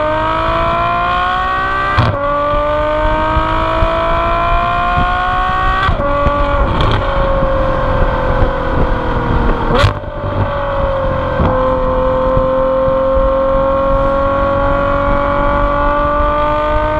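Ferrari F12's V12 engine heard at its exhaust tips while the car is driven. The pitch climbs steadily through the gears, with quick upshifts about two, six and eleven seconds in where it drops sharply. After the six-second upshift the pitch slowly falls, and there is a short sharp blip of revs near ten seconds.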